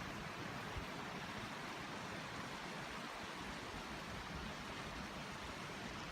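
Steady rushing hiss of wind outdoors, with a light, fluttering rumble of wind on the microphone.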